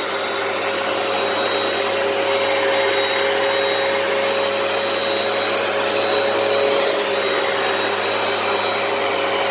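Hoover PowerDash carpet cleaner running steadily: an even motor hum with a few held tones over the rush of its suction.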